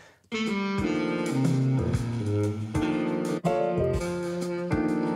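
Guitar-led music track playing back through studio monitor speakers, with bass notes underneath; it starts a moment in.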